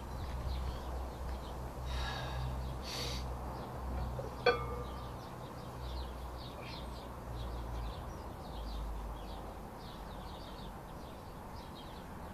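A single sharp, ringing metallic clank about four and a half seconds in, from the plates of a loaded barbell during a heavy Zercher lift, over a steady low hum and faint bird chirps.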